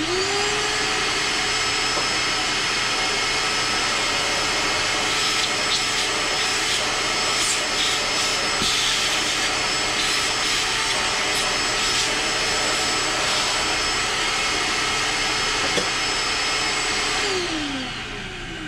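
Shop vacuum cleaning metal chips out of a freshly bored hole: the motor spins up at the start, runs steadily with a few clicks and rattles of chips being sucked in, and winds down with a falling pitch near the end.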